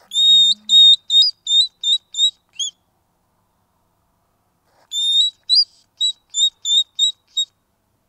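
Hedgehog cry: two series of high, piping whistled calls. Each series is a longer note followed by about six short quick notes, with a pause of about two seconds between the series.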